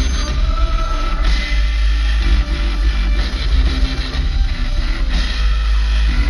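Live rock band playing loudly through a concert sound system, guitar over a heavy, booming bass.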